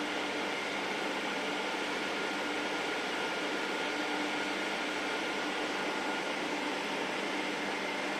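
Glass edge-processing machine running steadily: an even mechanical noise with a constant hum and a thin whine.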